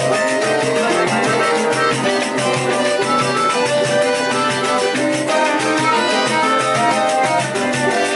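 Live choro ensemble playing at a steady lilting pace: flute carrying the melody over strummed cavaquinhos and seven-string guitars, with accordion and cello in the group.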